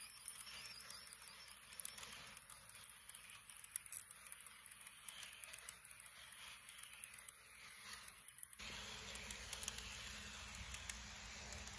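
HO-scale model passenger coaches rolling over sectional track, making a faint, irregular ticking and rattling as their wheels cross the rail joints. About eight and a half seconds in, a steady low rumble joins.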